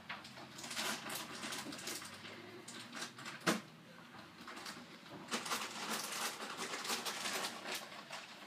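Close rustling and crackling handling noise from the phone rubbing against the cat's fur, in two spells, with a sharp click about three and a half seconds in.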